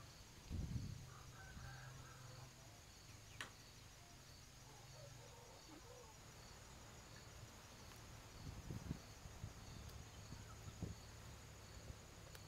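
Stones being set down on gravelly ground: a dull thump about half a second in, then a few softer knocks near the end as stones are pressed into wet mortar. Faint insect chirring pulses steadily behind.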